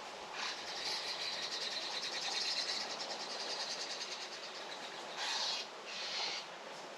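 A bird calling outdoors: a long, rapid, high trill lasting about four seconds, then several short high calls about half a second each, over a steady background hiss.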